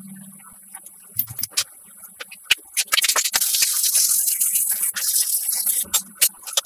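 Scattered clicks and rattles, then a loud hissing spray that starts about three seconds in and keeps going, broken by more clicks.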